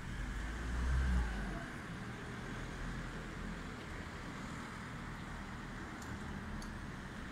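Street traffic noise: a low rumble of a passing vehicle swells about a second in and fades, then a steady background hum, with a couple of faint clicks near the end.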